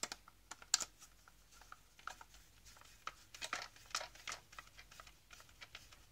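Small screwdriver turning screws into the plastic housing of a Saeco coffee machine's brew group. Irregular light clicks and ticks of metal on plastic and plastic parts being handled, the sharpest near the start.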